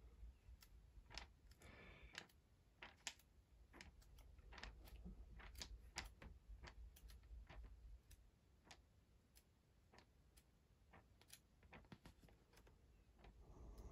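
Near silence: quiet room tone with faint, scattered small clicks at irregular intervals.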